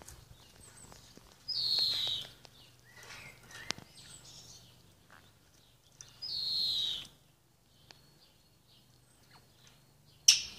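African grey parrot giving two whistled calls, each under a second and falling in pitch, about four and a half seconds apart, with faint clicks between them. A brief sharp sound near the end is the loudest thing.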